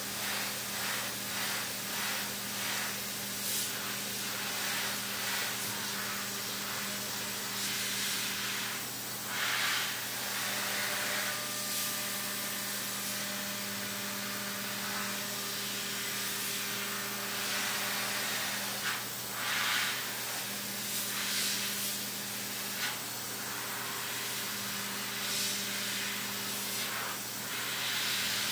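Hurco VMX30Di CNC mill's direct-drive spindle turning a 3/8-inch end mill at 12,000 rpm on a finishing pass in aluminum, a steady hum under the hiss of flood coolant spray. The cut pulses rhythmically at first and swells louder about a third and two thirds of the way through.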